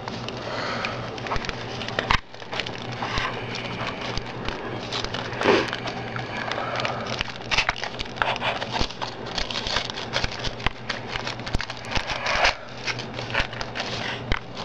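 Aluminium-foil-wrapped paper parabola crinkling and rustling in the hands as it is fitted onto a wireless router's antenna. Irregular small crackles come throughout, over a steady low hum.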